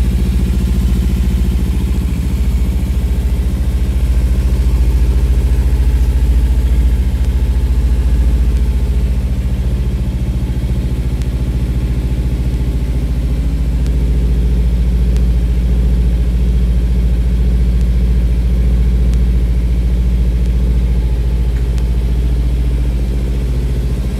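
2015 Kawasaki Ninja 300 SE's parallel-twin engine idling steadily on a rear stand, run to warm it up before winter storage.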